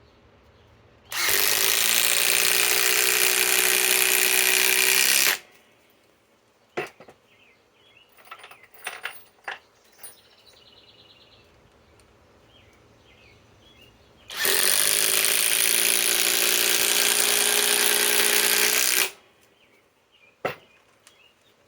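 SKIL PWR CORE 20 compact impact driver hammering 4-inch TimberLOK screws into wood: two runs of about four seconds each, one about a second in and one about halfway through, each rising quickly in pitch as it starts. Light clicks and handling knocks fall between the runs.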